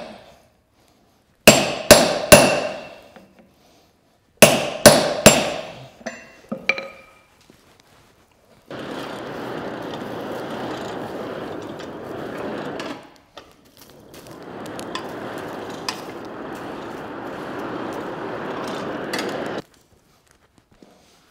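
Hand hammer striking hot steel on an anvil, with two quick groups of three ringing blows and a few lighter taps after. Then a steady rushing noise from the burning forge fire and its blower, heard in two long stretches that each stop abruptly.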